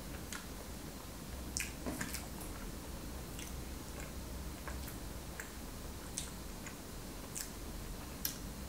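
Close-up mouth sounds of a person chewing a soft donut filled with avocado whipped cream: scattered faint wet clicks and smacks, irregularly spaced.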